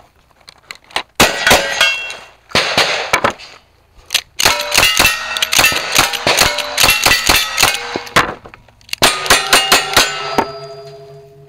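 Gunfire on a cowboy action stage: a shotgun, then a fast run of lever-action rifle shots, then single-action revolver shots. Hits on the steel targets clang and ring, and the ring of the last ones hangs on after the shooting stops.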